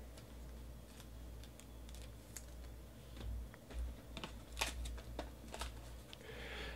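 Faint clicks and taps of a cardboard trading-card hobby box being handled, sharpest about two-thirds of the way in, then cellophane shrink wrap crinkling near the end as it is pulled off the box.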